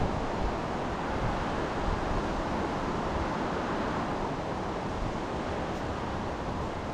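Steady rushing of a mountain stream, an even hiss of flowing water with no breaks.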